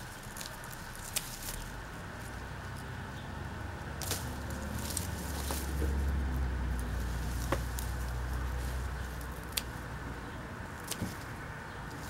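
A motor vehicle passes by: a low rumble that swells and then fades away. Scattered sharp clicks and rustles come from ginger stalks being handled close by.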